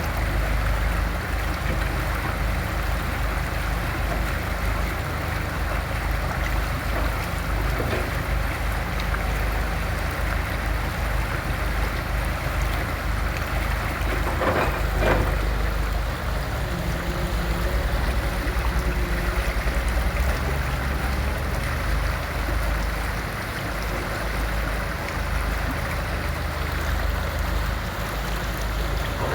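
Excavator's diesel engine running steadily, with a deep drone. A faint knock comes about a third of the way in, and two quick metallic knocks come about halfway through.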